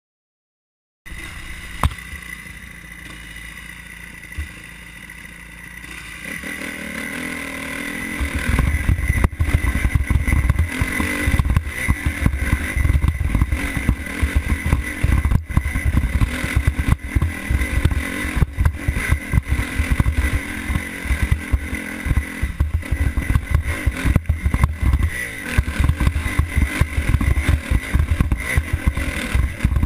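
Kawasaki KX-F four-stroke dirt bike engine running, quietly at first, then building from about six seconds in and running hard under load up a steep rocky climb. Frequent short knocks and clatter from the bike riding over loose rock.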